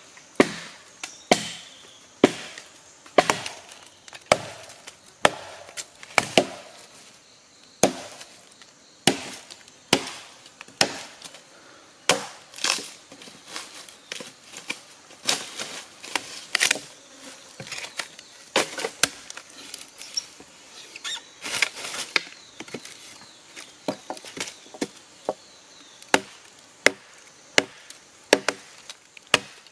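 Machete chopping into wood, sharp strikes at an uneven pace of about one to two a second, with short pauses between bursts of blows.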